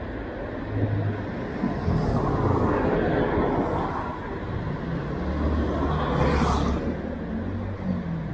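Street traffic: motor vehicles passing close by, the rumble swelling twice, with a short sharp hiss about six seconds in.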